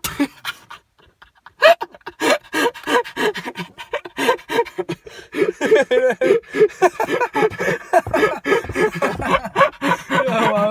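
A person laughing breathlessly in rapid panting gasps, starting about a second and a half in and running on without a break.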